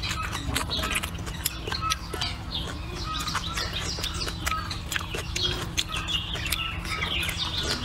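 Close-up chewing and wet lip-smacking of someone eating with chopsticks: a quick, irregular run of sharp mouth clicks over a steady low rumble.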